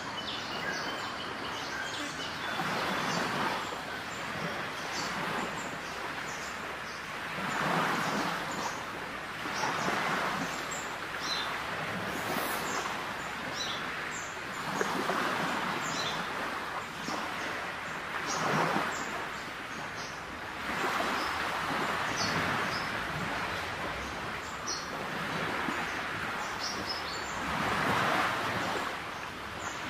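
Small birds chirping now and then over an outdoor noise that swells and fades every few seconds.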